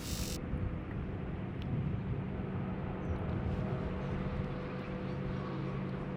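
Steady low hum of a motor running, with a faint higher tone held over it.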